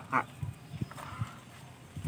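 A few faint, light knocks spaced about half a second apart over low background noise.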